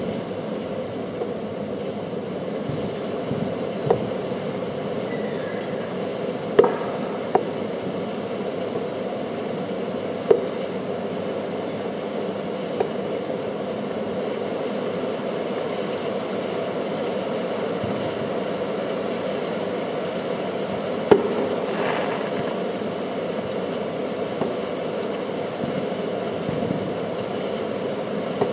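Distant aerial fireworks bursting as sharp, scattered pops, about seven in all at irregular intervals, the loudest about two-thirds of the way through. A steady background rumble runs underneath.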